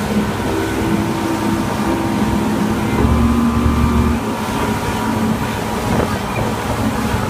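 Outboard motor running steadily at speed under load, towing inflatable tubes, with wind and rushing water. The engine note swells a little louder about three seconds in, then settles back.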